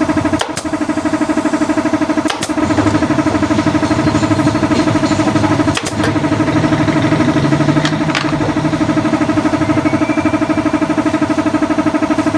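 A small engine running steadily with a fast, even pulse. A few sharp clicks cut through it, the kind a staple gun makes firing staples into a saddle cover.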